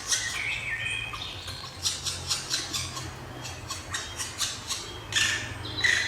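Bird calling in rapid runs of short, harsh notes, several a second, with a few longer, higher notes between and a louder burst of calls near the end.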